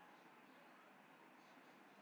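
Near silence: faint steady background hiss.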